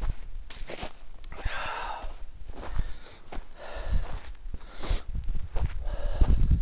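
A hiker breathing hard from a steep uphill climb: several loud breaths about a second apart, over low rumbling and bumps from walking and handling the microphone.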